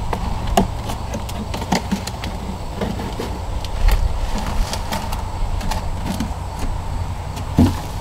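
Plastic bucket form being twisted and worked loose from a freshly poured foundry lining, giving scattered short creaks, scrapes and knocks over a steady low background rumble.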